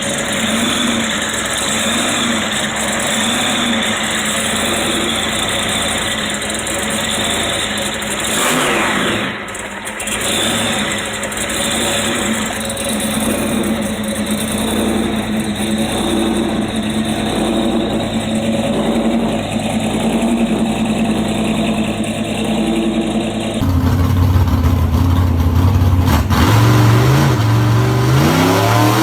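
Gasser hot-rod car engines running loudly, with an abrupt change to another engine about three-quarters of the way in. Near the end that engine revs up, its pitch rising.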